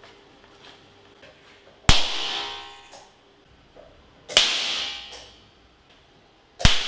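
Three sharp bangs about two and a half seconds apart, each dying away over about a second, with a metallic ring after the first: oxyhydrogen gas igniting inside the channels of a metal 3D-printed axe whose blade sits in a log.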